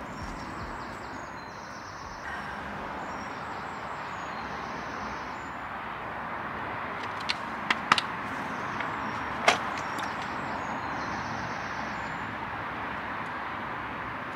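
Steady hiss of outdoor background noise with a low traffic rumble. A few sharp clicks and taps come about halfway through, as the polisher and its pad are handled.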